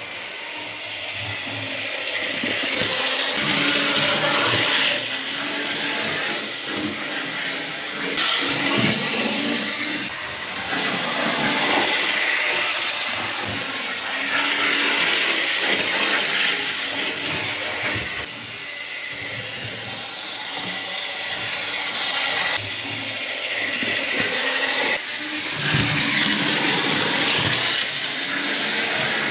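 Model railway trains and a model tram running on the layout's track: a continuous rushing whirr of small electric motors and wheels on rails that swells and fades every few seconds as the models pass nearer and further.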